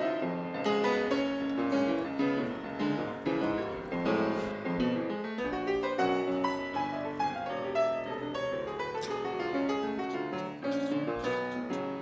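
Solo piano music, a busy passage of many quick notes running without a break.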